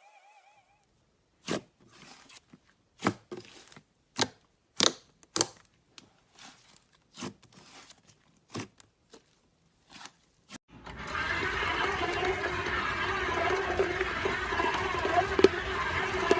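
A series of sharp, irregular clicks and pops from slime being handled, then, about eleven seconds in, an electric hand mixer starts up and runs continuously, beating the slime.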